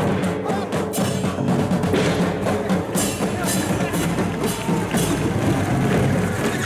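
Festival percussion from the ensemble aboard a ship float: a large drum, gongs and cymbals struck repeatedly, with sharp strikes about once a second over a continuous din.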